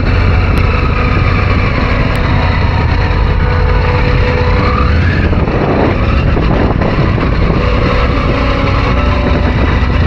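Triumph Tiger 900's three-cylinder engine running as the motorcycle is ridden, under a steady rush of wind and tyre noise. A brief rise and fall in pitch comes about five seconds in.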